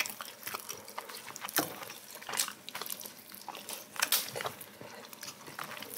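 Eating at a table: irregular small clicks and taps of chopsticks against plates and bowls, with soft chewing between them.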